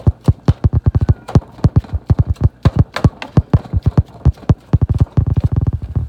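A spatula stirring and chopping ground meat as it browns in a skillet, knocking against the pan in a rapid, irregular run of loud knocks, several a second.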